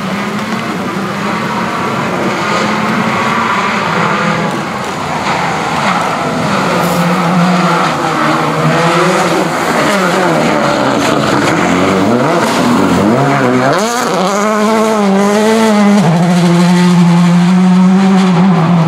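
Subaru Impreza WRC S14 rally car's turbocharged flat-four engine at stage speed as the car approaches and passes close by. The revs are held high, sag and waver from about nine seconds in as it slows, then climb sharply about two-thirds of the way through and hold high again near the end.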